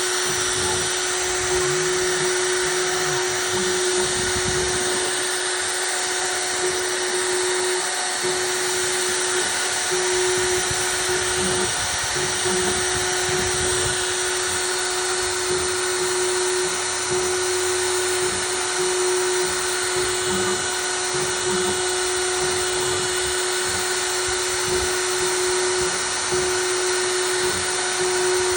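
CNC router spindle running steadily as it cuts into wood, a constant high whine over a rushing cutting noise.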